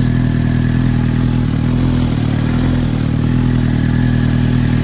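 2019 Suzuki GSX-R 750's inline-four engine idling steadily through an M4 full exhaust system with the catalytic converter deleted.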